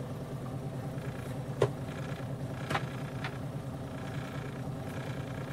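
Boat's outboard motor running steadily at low trolling speed, with a few sharp clicks about one and a half, two and a half and three seconds in.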